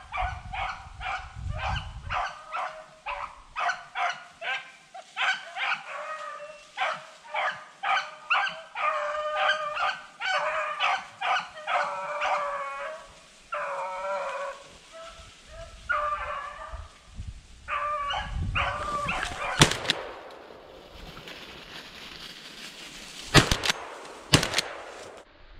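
Beagles baying on a rabbit's trail, about two barks a second, thinning out after about thirteen seconds: the pack is running the rabbit by scent. Near the end come a few sharp, loud bangs, the loudest sounds here.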